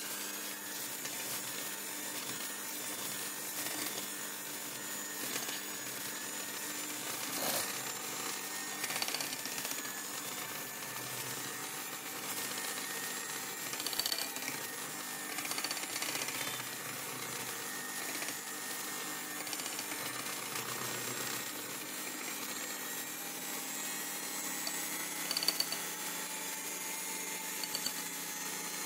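Electric hand mixer running steadily, its beaters whisking cake batter in a glass bowl, with a few sharp clicks along the way.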